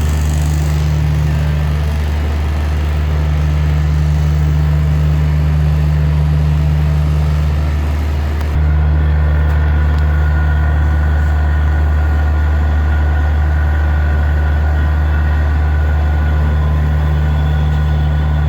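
An electric motor runs with a loud, steady low hum. The sound changes abruptly about eight and a half seconds in, then carries on steadily.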